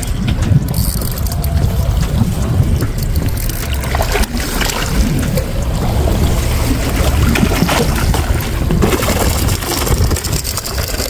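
Water sloshing against the boat over a steady low rumble, with a hooked tuna thrashing and splashing at the surface alongside the hull in the last couple of seconds.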